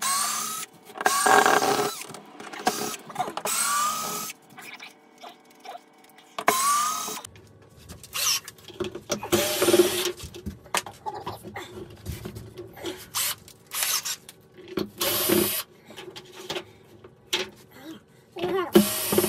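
Cordless drill-driver backing screws out of a camper roof vent's plastic trim ring. It runs in repeated short bursts, each a motor whine that rises in pitch as it spins up, with small clicks of the screws and trim between bursts.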